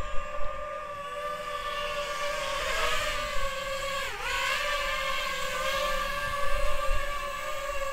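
DJI FPV drone's motors and propellers whining steadily as it flies low, its pitch dipping sharply and recovering about four seconds in as the throttle changes.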